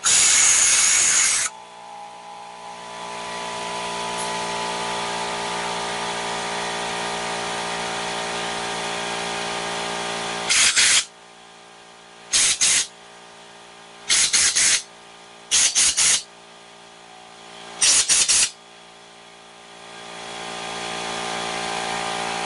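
Compressed air hissing from a blow gun in a long blast, then a steady mechanical hum, which is the air compressor running. About ten seconds in the hum drops away, and five short blasts of air follow as the carburetor jet is blown clear. The hum starts up again near the end.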